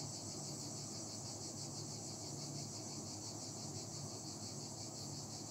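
Steady high-pitched background noise with a fast, even pulsing like an insect trill, over a low steady hum.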